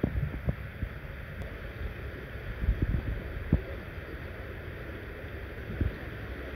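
Wind rumbling on the microphone, with scattered short low thumps, the loudest a few seconds in.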